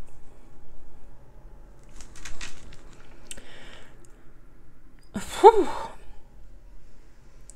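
A woman's soft mouth clicks and breaths, then a short hum that rises and falls in pitch about five seconds in.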